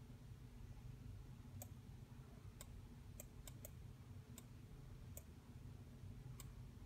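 About eight faint, irregularly spaced clicks of a computer mouse button over a low steady hum.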